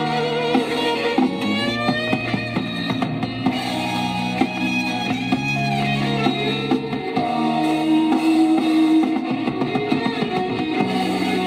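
Garage rock song playing from a 7-inch vinyl single on a turntable: electric guitar with bending lead notes over bass and drums.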